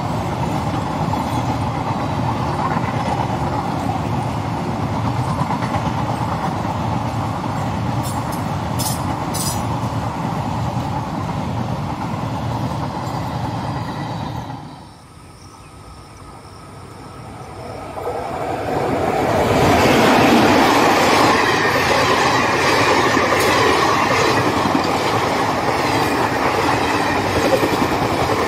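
Passenger train coaches rolling past on the track with steady wheel noise. About halfway through the sound drops away for a few seconds, then another passenger train builds up and passes close by at speed, louder and denser.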